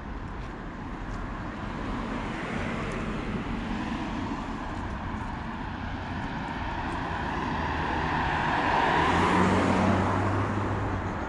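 A car passing close by on the road. Its engine and tyre noise swells to a peak about nine seconds in, then fades.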